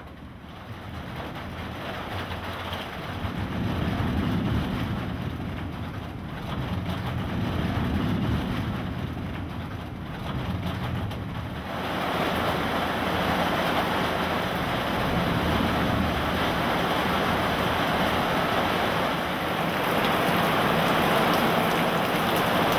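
Thunder rumbles low, swelling and fading through the first twelve seconds. About twelve seconds in, a steady loud rush of heavy rain and strong wind sets in and holds.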